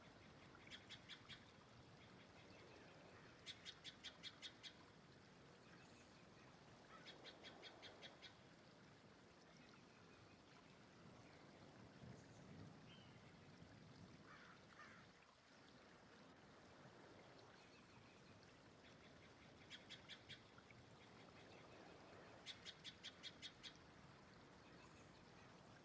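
A bird calling in short, faint series of rapid repeated notes, about six notes a second, each series lasting around a second. It calls three times in the first eight seconds and twice more after about twenty seconds, over a soft steady hiss.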